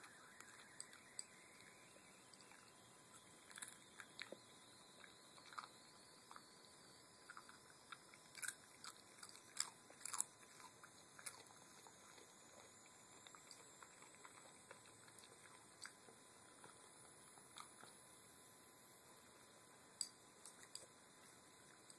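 Small dog crunching and chewing Sun Chips: bursts of sharp crunches between quieter pauses, the busiest stretch about halfway through and another shortly before the end.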